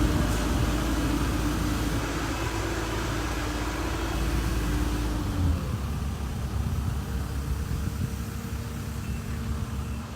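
An engine running steadily, its hum and deep rumble dropping away about halfway through, leaving a fainter background hum.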